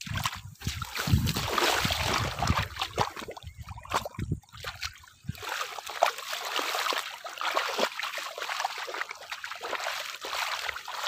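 Muddy water sloshing and splashing as a line is dragged through the freshly levelled mud of a flooded paddy field. The splashing is loudest for about the first five seconds, then gives way to a quieter trickle.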